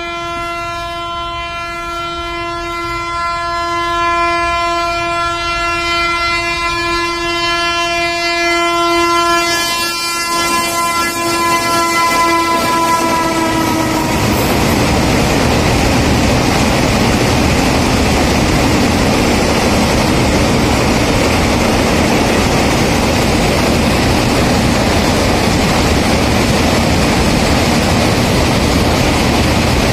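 Freight train's horn sounding one long steady blast for about fourteen seconds, its pitch dropping slightly as it ends. Then the wagons rolling over a steel truss bridge: a steady loud rumble with the clickety-clack of wheels on rail joints.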